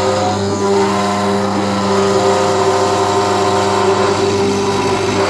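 Desktop CNC mill's 500 W ER11 spindle motor running at a steady speed while the bit cuts into a wooden board, with the machine's axis motors moving the spindle along the cut. A steady, loud hum with several fixed tones.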